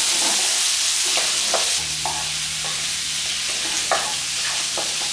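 Chopped onions with crushed ginger and garlic sizzling in hot oil in a wok. A wooden spatula scrapes and taps against the pan as they are stirred. A low steady hum joins about two seconds in.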